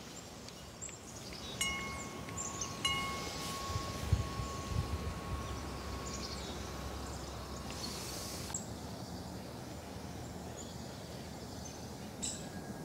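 A wind chime struck twice, a little over a second apart, its clear notes ringing on for several seconds, then one more faint strike near the end. Underneath, faint low glugging of motor oil being poured from a bottle into a small generator engine.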